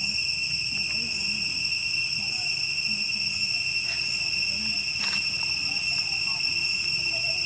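Steady, shrill drone of jungle insects, an unbroken high whine. Faint low voices murmur underneath.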